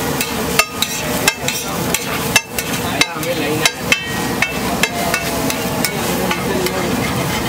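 Flat metal spatula chopping and scraping scrambled egg on a large iron griddle, clanking sharply on the metal about a dozen times in an uneven rhythm, most thickly in the first five seconds. A steady sizzling hiss runs underneath.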